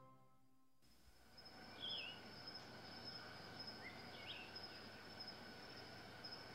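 Background music ends in the first second, then faint field ambience: a steady high-pitched insect trill with a few short bird chirps.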